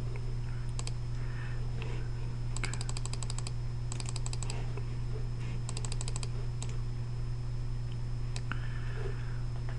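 Three short bursts of quick, evenly spaced clicks and a few single clicks from computer input, over a steady low electrical hum.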